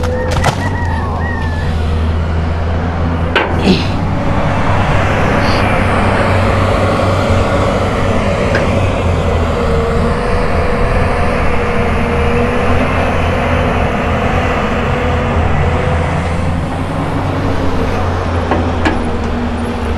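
Hyundai crawler excavator's diesel engine running steadily as it swings and dumps its bucket, with a wavering whine above the low hum. There are a few sharp knocks in the first four seconds.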